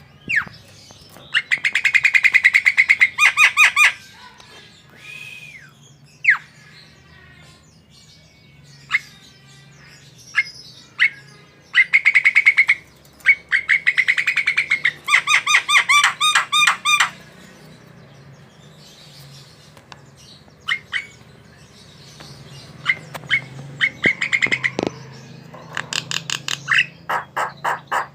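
Javan myna (jalak kebo) calling in vigorous outbursts: runs of rapid, chattering repeated notes alternating with single sharp whistled calls, with short pauses between outbursts.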